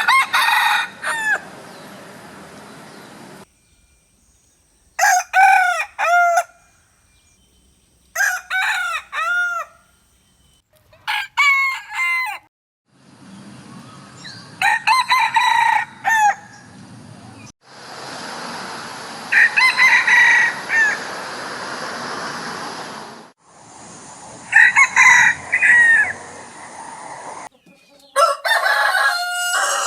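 Roosters crowing one after another, about eight separate cock-a-doodle-doo crows with short gaps between them. Each crow comes over a different background hiss that starts and stops abruptly.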